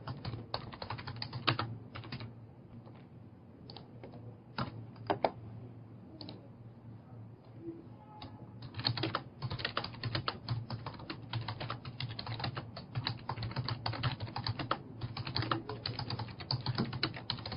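Typing on a computer keyboard in short runs of keystrokes, sparse at first and then quick and dense from about nine seconds in, over a low steady hum.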